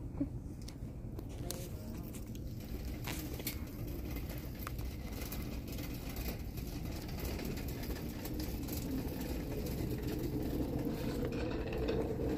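Steady low rumble of shop background noise, with scattered light clicks and taps throughout. A faint hum grows slightly louder near the end.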